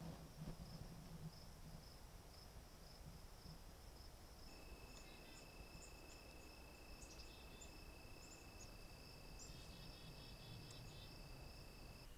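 Faint, steady trilling of insects: one continuous high trill throughout, joined about four and a half seconds in by a second, lower-pitched trill.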